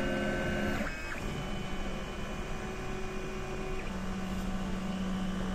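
Creality CR-100 mini 3D printer's stepper motors running as a print starts, a steady whine held at a few set pitches that jumps abruptly to new pitches about a second in and again near four seconds.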